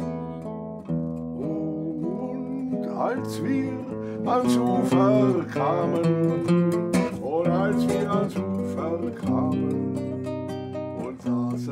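Acoustic guitar playing a mix of strummed and plucked chords, with the notes changing every second or so.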